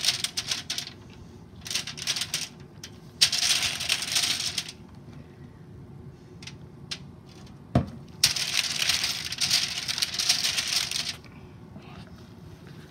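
Aluminium foil on a baking sheet crinkling under gloved hands as raw meatballs are set down on it: scattered light clicks and taps, two longer stretches of crackling, and a sharp knock just before the second stretch.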